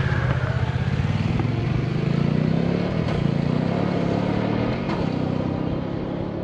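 Motorcycle engine running, its pitch rising a little about two seconds in, then the sound easing off slightly toward the end.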